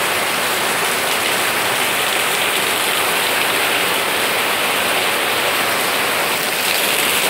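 Steady rain falling on garden plants and foliage, an even hiss of drops.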